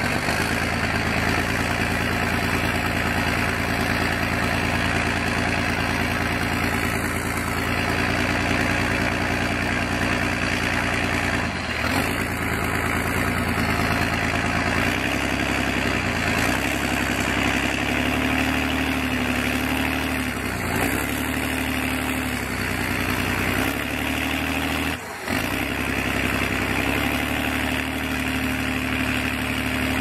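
Heavy diesel engine running steadily, its pitch stepping up and down a few times.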